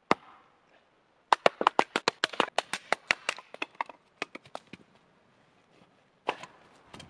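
A hatchet strikes firewood once with a sharp crack. About a second later comes a quick run of sharp hatchet chops and taps, roughly eight a second, as kindling is split on a rock. Another single sharp strike follows near the end.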